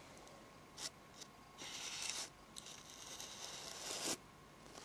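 Application brush sweeping close to the microphone: a short tap about a second in, then two longer scratchy strokes.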